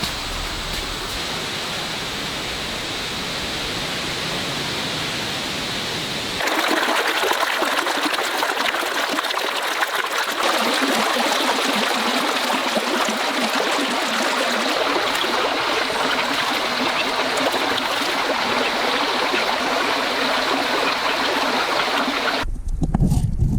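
Running water, a steady rush like a stream. About six seconds in it turns abruptly louder and brighter, with close splashy crackle.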